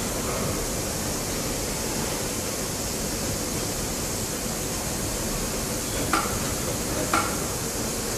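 Steady machinery noise of an injection moulding workcell running, with two short, sharp knocks about a second apart near the end.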